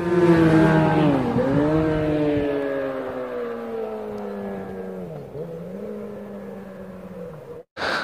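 2010 Yamaha YZF-R6 sport bike with an Akrapovič megaphone exhaust accelerating hard away after passing, its inline-four revving up through the gears. Two quick upshifts come about a second in and about five seconds in, and the engine fades into the distance until the sound cuts off suddenly near the end.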